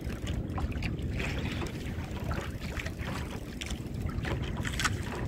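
Wind buffeting the microphone and sea noise aboard a small fishing boat: a steady low rumble with scattered light clicks and knocks.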